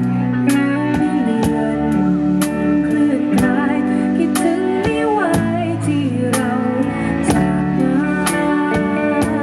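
Band music at a slow tempo: held chords and a gliding melody line over drum and cymbal hits about once a second.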